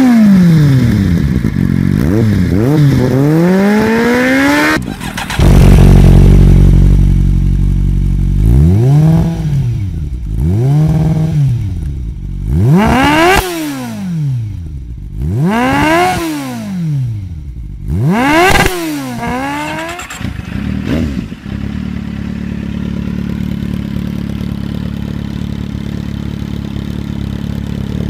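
Kawasaki Z750 inline-four engine with aftermarket slip-on silencers, revved at a standstill. It is blipped repeatedly through a Shark carbon silencer for the first few seconds. Then it idles and is revved up and down five times through an Ixil silencer, and settles into a steady idle for the last several seconds.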